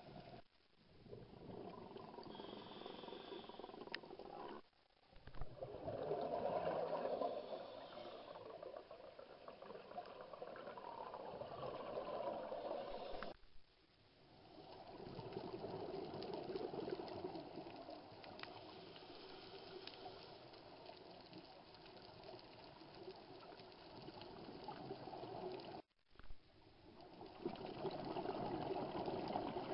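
Underwater recording of scuba exhaust bubbles and regulator breathing: a continuous bubbling rush that swells and fades over several seconds with each breath, broken a few times by brief, sudden dropouts.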